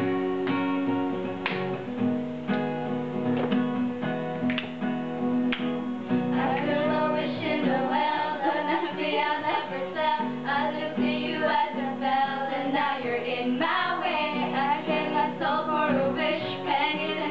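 Acoustic guitar strummed alone for the first few seconds, then voices join in singing over it about six seconds in.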